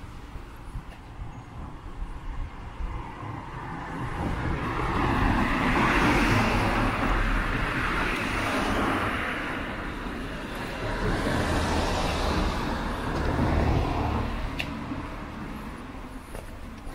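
Road traffic passing: a rush of tyre and engine noise swells up about four seconds in, peaks twice, and fades away near the end.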